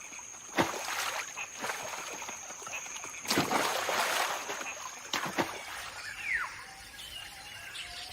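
Macaques splashing into river water: a sharp splash about half a second in, a longer splash a little over three seconds in, and a smaller one a couple of seconds later.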